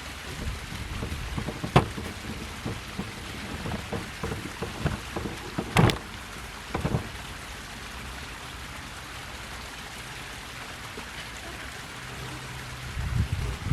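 Scattered knocks and clicks of metal tube parts and bolts being handled as the handles are fitted onto a push garden cultivator, the loudest about 2 s in and near 6 and 7 s, over a steady low rumble and hiss.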